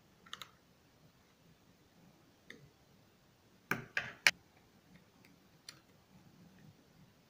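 Light clicks and taps of 3D-printed plastic gearbox parts and their pins being handled and fitted, with a louder group of three sharp knocks about halfway through.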